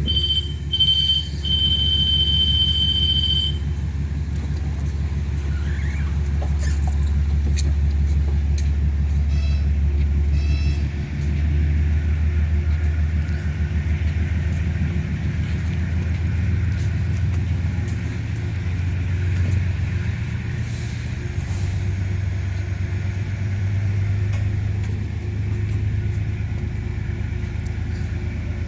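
Diesel passenger train running at a station platform: a steady low engine drone that shifts up in pitch about 11 seconds in. A high, steady electronic tone sounds for the first few seconds, and a few short high beeps come around 9 to 10 seconds.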